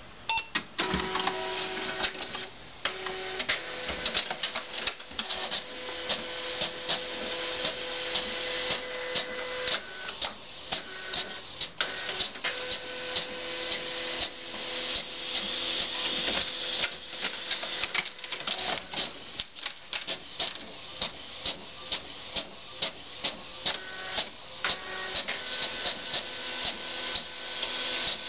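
Desktop printer running a print job, started at a button press: the motor whirs and the mechanism clicks, settling into about two sharp clicks a second as the page goes through.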